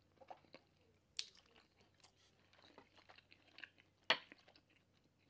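Chewing of barbecued pork rib meat: soft, wet mouth sounds with scattered small clicks, and two sharper clicks, about a second in and near four seconds.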